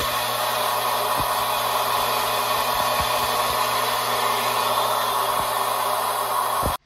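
Steady rushing noise of an electric fan or blower motor, with a low hum under it and a few faint knocks. It cuts off suddenly near the end.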